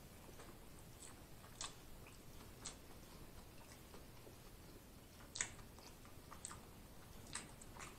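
Faint, close-up chewing of a mouthful of food: a few soft, wet mouth clicks spread out, the loudest a little past the middle.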